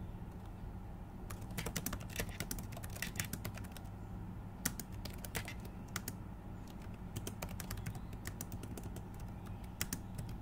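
Computer keyboard typing: irregular runs of keystroke clicks starting about a second in, over a steady low hum.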